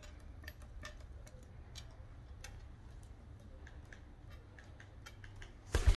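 African grey parrot's claws clicking irregularly on a stone tabletop as it walks, then a brief loud thump near the end.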